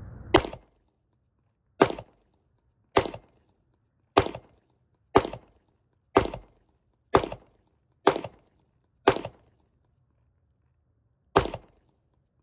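Ten pistol shots from a Springfield XDM Elite Compact in 10mm, fired at about one a second with a longer pause before the last shot.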